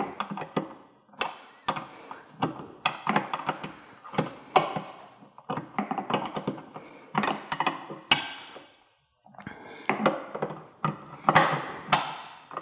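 Metal wrenches clicking and scraping on a bolt and nut as the nut is tightened, in short irregular bursts with a brief pause about two-thirds through.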